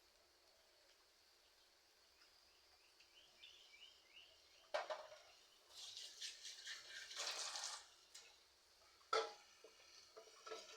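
Faint kitchen handling sounds: a sharp knock, a couple of seconds of rustling and scraping, then two more knocks near the end, after a short run of faint high chirps.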